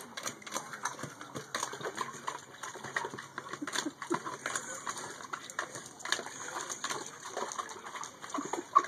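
Brittany puppy rummaging with its head inside a plastic bucket while hunting a bug, giving irregular scrapes and knocks of the plastic and snuffling.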